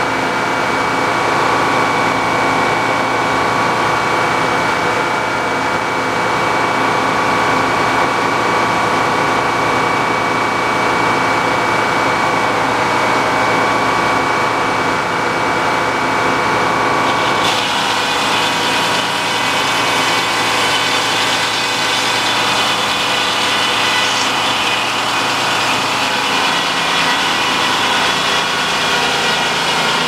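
Large circular sawmill blade spinning with its belt-driven power unit running steadily. A little past halfway the blade bites into a big poplar log, and a higher hiss of cutting joins the steady hum.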